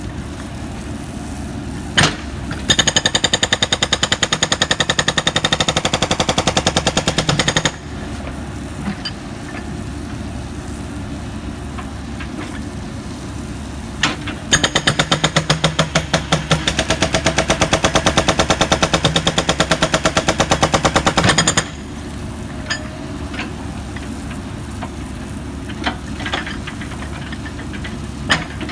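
Pneumatic jackhammer at work in two long bursts of rapid hammering, about five and seven seconds long, each starting just after a single sharp knock, over a steady background hum.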